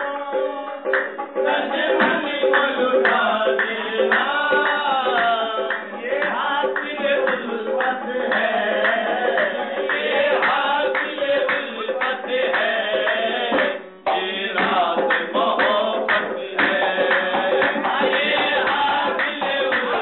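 Live qawwali: singing voices over a harmonium's steady held notes, with hand-drum strokes and hand clapping keeping the beat.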